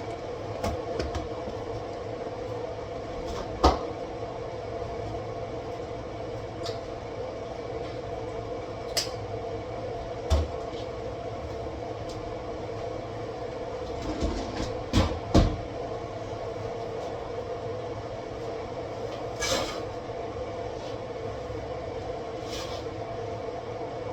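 Kitchen handling noises: scattered knocks and clicks of containers and utensils being moved, with a cluster of louder knocks a little past the middle, over a steady hum.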